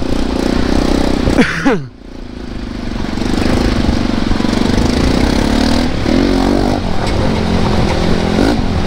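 Dirt bike engine running as the bike rides along. About one and a half seconds in there is a short falling sweep and the engine sound drops away briefly, then it builds back up and runs steadily.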